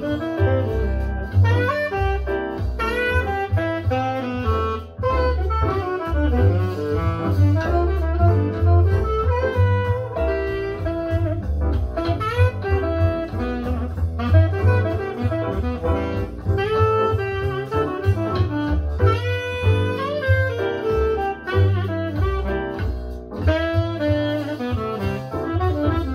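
Jazz with a lead saxophone over a strong bass line, played back through an Icon Audio MFV 3 Super floorstanding loudspeaker.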